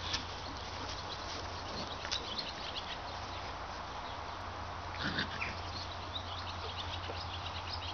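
Siberian husky puppies squeaking and yipping at play, in short high calls scattered throughout, with a louder yelp about five seconds in, over a steady low hum.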